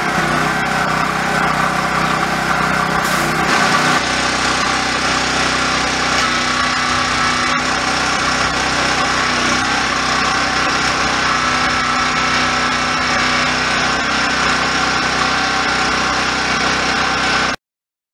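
Honda GX340 single-cylinder engine driving a NorthStar 3000 PSI pressure washer's Cat pump, running steadily under load, with the hiss of the high-pressure spray on concrete. The sound cuts off suddenly near the end.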